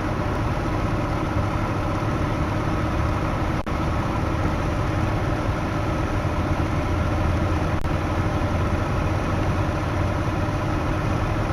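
1998 Jeep Grand Cherokee engine idling steadily with the air conditioning running on high, with a couple of faint clicks.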